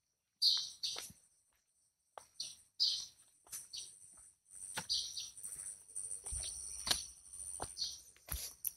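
Birds chirping in short repeated calls, with a steady high-pitched buzz joining in about three seconds in.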